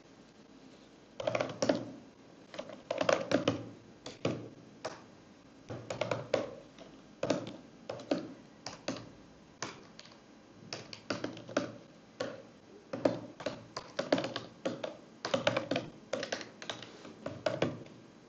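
Typing on a computer keyboard: bursts of quick key clicks with short pauses between them, starting about a second in and stopping just before the end.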